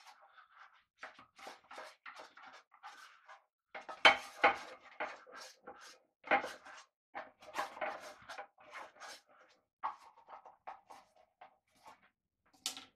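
A spoon scraping and knocking in the cups of a metal cupcake tin: an irregular run of clinks and scrapes, loudest about four seconds in.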